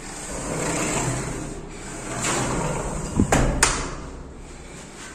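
A large sliding window sash pushed along its track: a rolling rumble that swells twice, then two sharp knocks about three and a half seconds in as the sash meets the frame.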